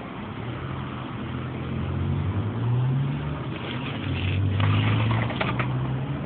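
A passing motor vehicle's engine hum, shifting up and down in pitch and swelling louder twice, with some rustling and clicks about two-thirds of the way in.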